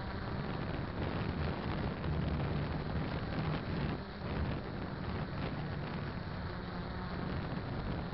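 Quadcopter's 1000KV brushless motors and propellers in flight, recorded from the drone's own onboard camera: a steady rushing noise with a low hum that wavers in pitch, mixed with wind on the microphone.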